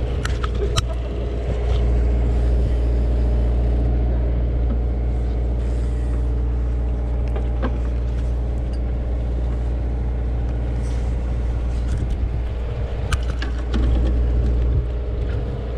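A sportfishing boat's engine running steadily, a low drone with a constant pitch. A few faint clicks sound over it.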